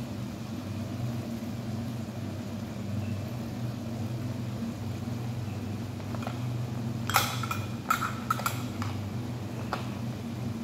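Steady low hum of a kitchen fan running, with a short run of clatters and knocks, like kitchenware being handled, about seven to nine seconds in.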